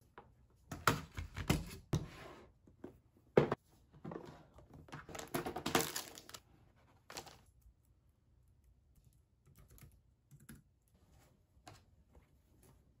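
Hands rummaging in a clear plastic embroidery floss storage box: sharp plastic clicks and knocks, the loudest about three and a half seconds in, with plastic-wrapped packets rustling. After about seven seconds only faint scattered taps remain.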